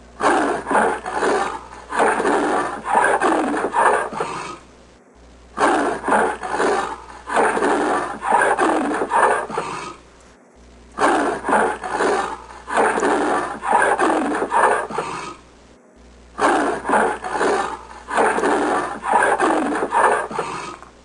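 Recorded leopard call, a rapid series of rough rasping grunts like wood being sawn, played four times in a row with short gaps between.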